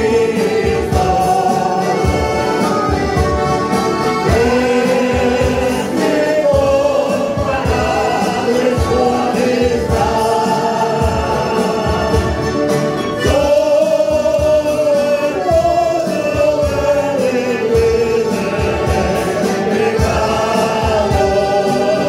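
Church choir singing a Spanish hymn together over a strummed acoustic guitar and accordion, with a steady strumming rhythm under the held, gliding melody.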